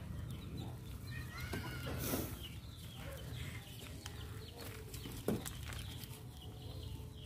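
Quiet background: a steady low hum with faint, short animal-like calls over it. A brief clatter comes about two seconds in and another a little after five seconds.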